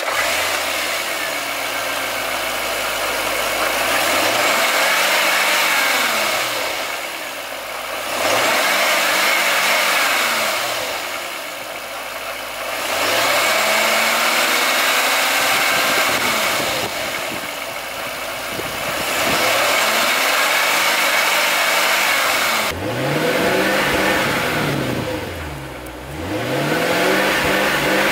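Supercharged V8 engine of a 2001 Jaguar XKR running and being revved about six times, each time climbing and then falling back to idle.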